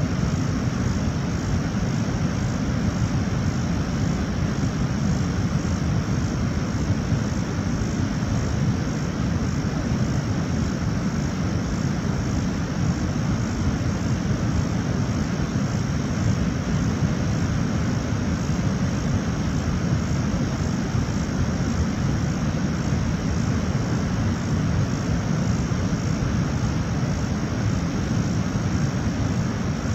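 Steady rush of water from a waterfall, a constant deep noise that does not change.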